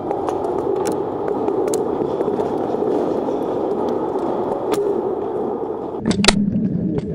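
Paintball markers firing, scattered sharp pops across a large hall, with a close burst of several shots about six seconds in, over a steady rushing noise.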